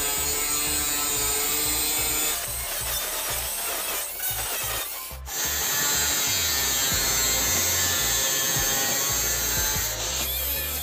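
Electric angle grinder with an abrasive disc grinding the sheet-steel body of an autorickshaw: a steady high motor whine over the rasp of the disc on the metal. It breaks off briefly about five seconds in, then carries on.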